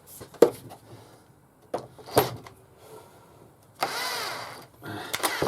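Electric drill driving a wood screw home for about a second, its motor pitch dipping and recovering under load, after a few knocks of the parts being handled.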